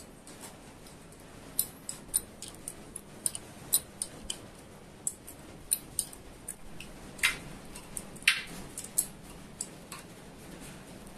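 Irregular sharp metallic clicks, about two a second, of a ring spanner working the nuts on the bolts of a lathe headstock's pillow-block bearing housing. Two louder clinks come about seven and eight seconds in.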